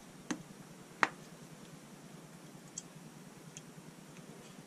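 Small metal clicks as a Mikuni VM22 carburetor's float and float pin are handled and fitted: a soft click, then a sharper one about a second in, and a couple of faint ticks later.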